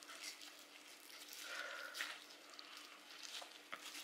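Faint, irregular squishing of minced meat and rustling of disposable plastic gloves as hands wrap the meat around a boiled egg.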